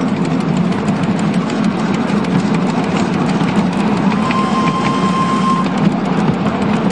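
Single Fairlie miniature steam locomotive hauling its train on a 7¼-inch gauge track, with a steady rumble and a quick run of clicks from the wheels on the rails. A brief steady high note sounds for just over a second a little past the middle.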